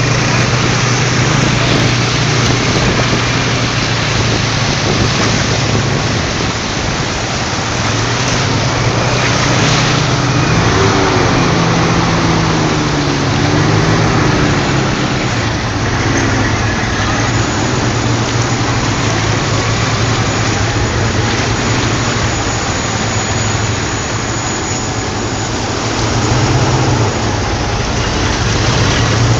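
Engine of the vehicle carrying the camera running steadily on the move, a low hum under steady wind and road noise. The engine note wavers up and down around the middle.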